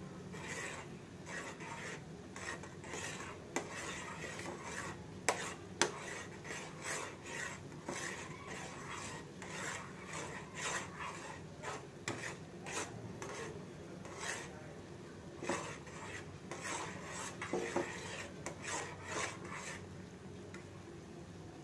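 A spoon stirring Maggi noodles in a steel pan, scraping against the pan in repeated short strokes, with two sharp clinks about five and six seconds in.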